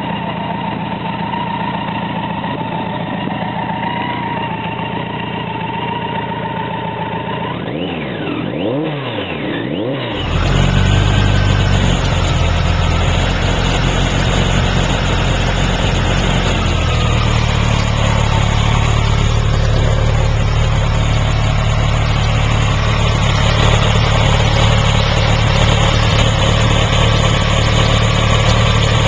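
BMW K100RT's inline-four engine running, with a couple of quick revs, rising and falling in pitch, around eight to ten seconds in. From about ten seconds on it idles steadily with a low, even drone.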